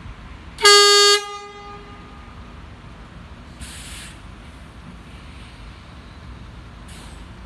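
Horn of a Scania Citywide articulated city bus, one short loud toot about half a second long on a single steady pitch, over the low rumble of the idling bus. Two short hisses follow, one about three and a half seconds in and a briefer one near the end.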